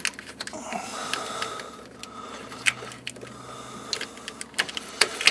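Scattered sharp clicks and light scraping from a flat-bladed screwdriver prying open plastic wiring-harness retainers, with a faint steady hum behind.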